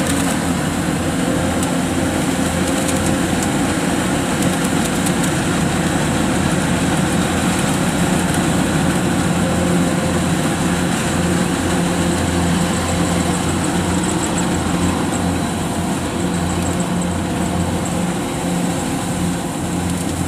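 Kubota DC105X combine harvester's diesel engine running steadily as the machine cuts and threshes rice.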